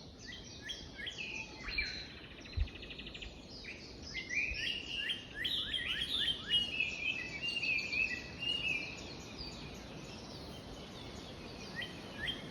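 Several songbirds singing together: runs of quick, repeated falling chirps, a rapid buzzy trill about two seconds in, and warbled phrases in the middle. A soft low thump comes about two and a half seconds in.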